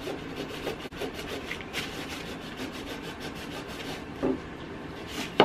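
Fingers rubbing and scrubbing quickly back and forth over a painted frame, working the fresh paint off to give a chippy, distressed finish. A sharp knock comes right at the end.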